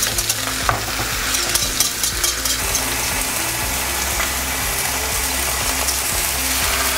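Beef cheeks searing in a hot frying pan of oil and butter, sizzling: sharp spitting pops for the first couple of seconds, then a steady hiss.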